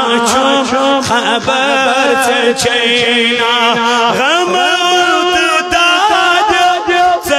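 A man singing a Kashmiri naat solo into a microphone, in wavering, ornamented phrases. A little past halfway his voice slides up to a higher note and holds it.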